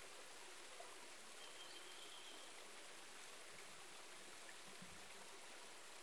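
Faint, steady wash of a shallow mountain stream trickling over rocks, its flow thin from drought. A brief faint high whistle sounds about one and a half seconds in.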